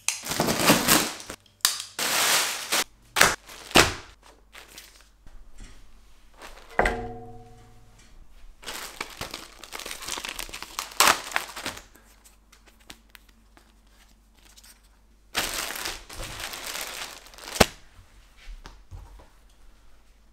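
A knife slitting the packing tape on a cardboard box, heard as a few sharp tearing rips in the first four seconds, then plastic packaging bags crinkling as they are handled, in longer spells about nine and sixteen seconds in.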